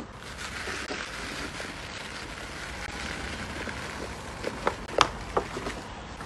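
Dachshund gnawing on a chew stick, with a few sharp cracks a little past the middle, the loudest about five seconds in, over a steady hiss.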